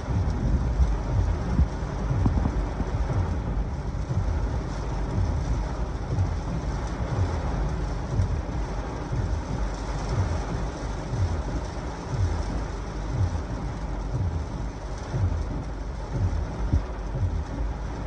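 Heavy thunderstorm rain beating on a car's roof and windshield, heard from inside the car, with gusty wind and a run of low thumps, about one or two a second.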